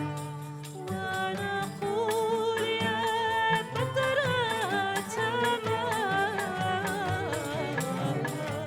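Arab-Andalusian music: a voice sings an ornamented, wavering melody over bowed strings and a sustained accompaniment.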